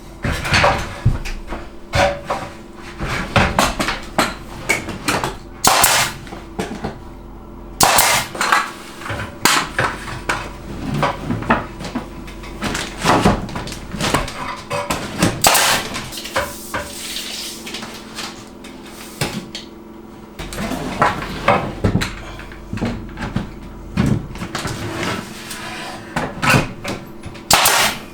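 Irregular knocking and clattering of hand construction work, with hammer-like blows and hard materials being handled, some strikes coming in quick clusters. A faint steady hum lies underneath.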